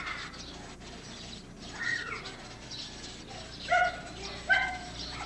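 A dog yapping, a few short barks in the second half over faint outdoor background.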